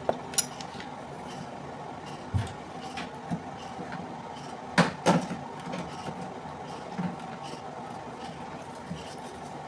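A spoon and a sugar pot being handled while a teaspoon of sugar goes into the blender: scattered short clicks and knocks, two of them louder about five seconds in, over a steady faint background hum.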